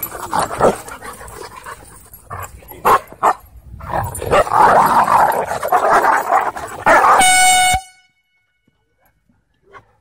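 Several dogs growling and barking in a close scuffle. About seven seconds in, a short horn-like steady tone sounds and cuts off abruptly.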